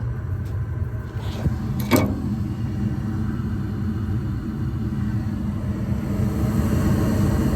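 Gas furnace running with its burners lit and blower motor off: a steady low rumble. One short sharp sound cuts in about two seconds in.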